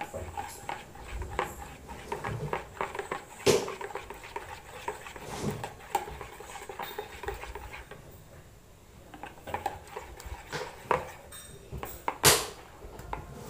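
Steel spoon beating a runny egg and melted-butter mixture in a ceramic bowl: rapid clinks and scrapes of metal against the bowl, with a louder knock a few seconds in and another near the end.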